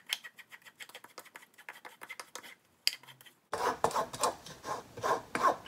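Wooden spatula scraping and rubbing cooked azuki beans through a fine-mesh metal sieve in rapid, repeated strokes, pressing the bean pulp through and leaving the skins behind for smooth sweet bean paste. The strokes get louder from a little past halfway.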